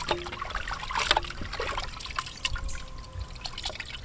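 Hands sloshing and rubbing chunks of raw buffalo head meat in a large metal pot of water, with irregular splashes and drips as the meat is washed.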